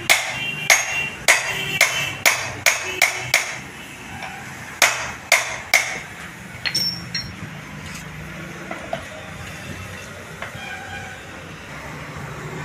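Hand hammer striking a heated steel part on a steel anvil block: a quick run of about eight sharp, ringing blows, a short pause, then three more. After that come only a few light knocks.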